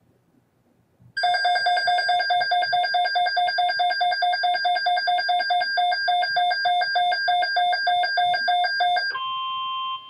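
Several NOAA weather alert radios going off together for a severe thunderstorm watch: loud electronic alarm beeping in a fast, even pulse, starting about a second in. About nine seconds in the beeping stops, and a single steady alert tone carries on, quieter.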